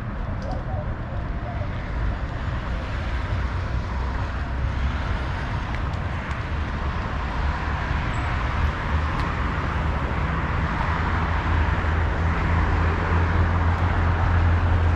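Steady hum of road traffic, a low rumble that grows a little louder near the end.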